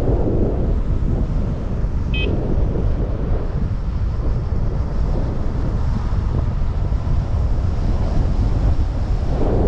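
Steady wind buffeting on the microphone while riding an electric scooter at speed, a loud low rumble throughout. A short high beep comes about two seconds in.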